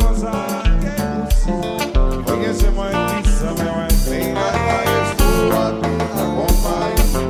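Haitian konpa band music: a steady kick-drum pulse about one and a half beats a second, with guitar and singing over it.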